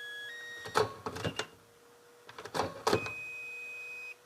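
Makita battery charger beeping short electronic notes of its selectable tune, ending in one longer held beep, amid plastic clicks and knocks as a lithium-ion tool battery is slid off and back onto the charger. The battery being taken off and put on is how the charger's song is changed.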